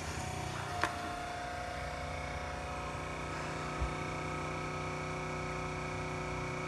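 Keurig Kold cold-drink maker running a steady mechanical hum with several held tones as it begins a drink cycle after its start button is pressed, with a short click about a second in.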